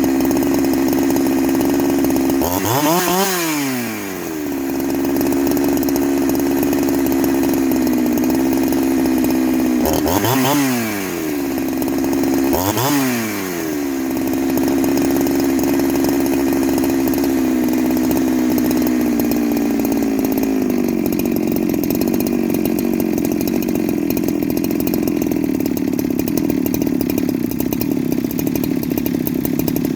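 Farmertec G372XT two-stroke chainsaw running at high revs, briefly let off and brought back up three times. From about two-thirds of the way through, the revs ease down to a lower, rougher note.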